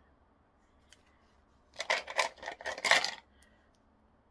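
Small cast resin hearts clicking and clattering against each other as they are handled, a quick burst of hard clicks for about a second in the middle.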